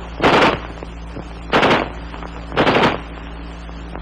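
Three short bursts of gunfire from an XM16E1 (M16) 5.56 mm rifle, each a few rapid rounds lasting about a third of a second, spaced a little over a second apart.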